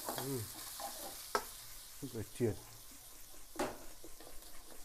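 Sliced shallots and chillies sizzling in hot oil in a non-stick wok while a spatula stirs and scrapes them. The spatula knocks sharply on the pan twice, and the sizzle thins out in the second half.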